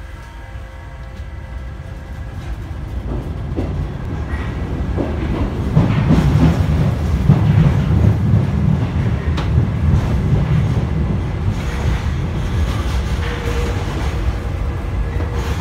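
Ride inside a steel-wheeled MF67 Paris Métro car as it gathers speed: a low rumble of wheels on rail, with clacks over rail joints, swells over the first several seconds and then runs on steadily. A faint steady whine comes in near the end.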